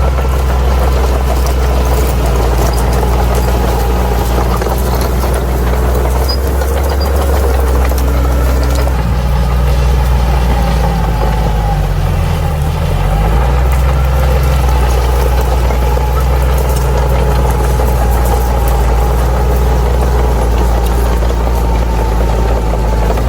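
Crawler bulldozer's diesel engine running steadily with a low drone. About halfway through, its note dips briefly and then comes back up.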